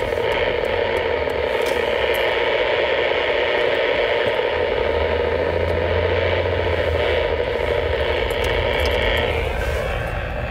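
Power line interference from a mobile amateur radio transceiver's speaker tuned to the AM aircraft band: a loud, steady, irritating noise, heard inside a moving vehicle with road and engine noise under it. Near the end the noise drops in pitch and eases slightly.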